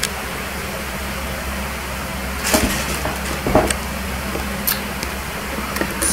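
Steady background hiss and low hum, with a few soft knocks and rustles as hands handle the camera, about two and a half, three and a half and five seconds in.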